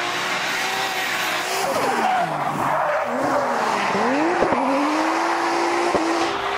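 Drift car sliding past with its tyres squealing and its engine revving, the engine note sweeping down and then back up as it goes by. A few sharp cracks come around the middle of the slide.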